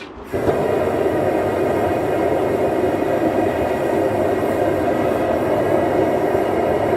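Home-built single-burner propane gas forge catching about half a second in, then running with a steady, loud rushing burner noise.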